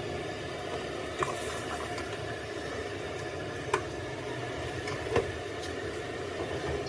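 Gravy simmering and sizzling in an iron wok while a steel ladle stirs it, knocking sharply against the wok three times, over a steady low rumble.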